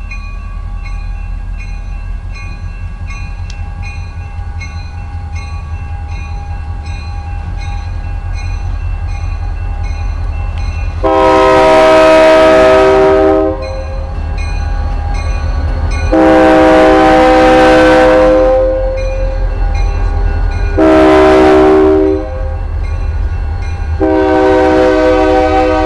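Diesel freight locomotive drawing closer with a steady low engine rumble while a bell dings at an even pace, then sounding its multi-chime air horn in four blasts, long, long, short, long: the standard grade-crossing warning. The last long blast is still sounding as it passes.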